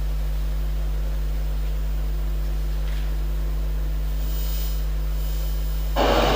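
Steady electrical mains hum with a faint hiss from the room's sound system. Near the end the soundtrack of a played video cuts in loudly.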